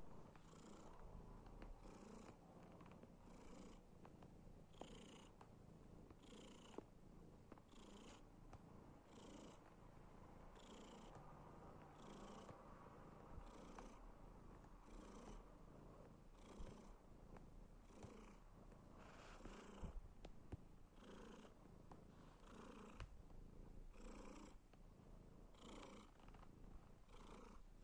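Domestic cat purring steadily, swelling and easing about once a second with each breath.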